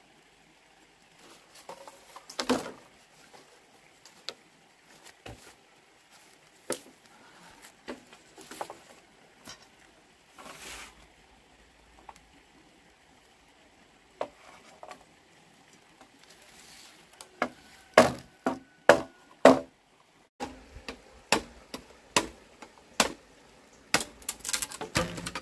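Hollow wooden knocks and clatters of bamboo poles being pulled loose and handled, with a quick run of four sharp strikes about three-quarters of the way through and more knocks near the end.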